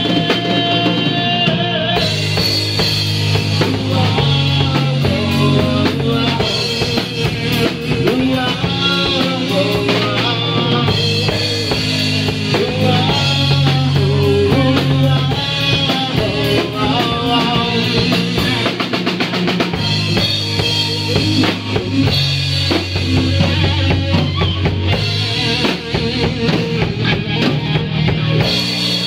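Live rock band playing loudly: drum kit with bass drum and snare, electric guitar and bass guitar.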